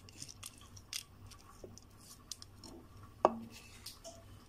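Light clicks and rustling as coriander seeds are tipped and scraped off a ceramic plate into a cooking pot, with a sharp, ringing clink about three seconds in.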